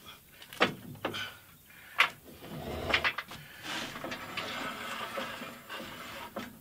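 Steel parts of a Harbor Freight drywall lift being handled: three sharp metallic knocks, then a longer rattling, scraping stretch as the lift is shifted on its casters.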